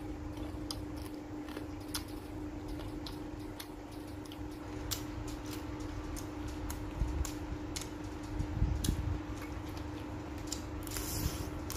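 Cooked shrimp being peeled and eaten by hand: irregular small cracks and clicks of shell breaking and chewing, with a brief brighter crackle near the end, over a steady low hum.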